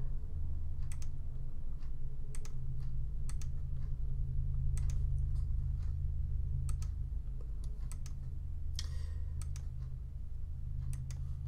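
Computer mouse clicking at irregular intervals, many clicks coming in quick pairs, as points are placed one by one along an outline. A steady low hum runs underneath.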